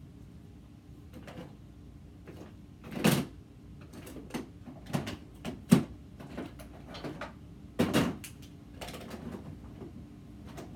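Objects being handled and set down: a series of short clicks and knocks, the loudest about three seconds in, with several more through the middle.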